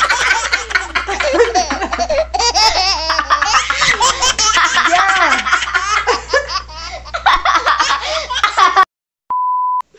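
A woman and a young girl laughing hard together, a long fit of laughter that cuts off suddenly near the end, followed by a short steady beep.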